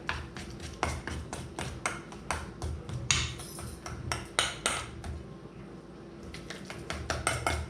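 A utensil clinking and scraping against a bowl in quick, irregular strokes while butter is mashed together with seasonings, easing off briefly about two-thirds of the way through.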